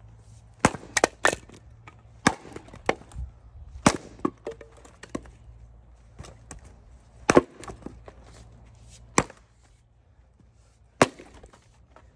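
Splitting axe chopping firewood rounds: about a dozen sharp cracks, some in quick clusters of two or three, as the wood splits easily.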